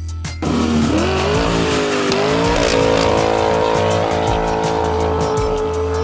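Car burnout: an engine revs and tyres squeal. It starts suddenly about half a second in, rises in pitch for a couple of seconds, then holds steady.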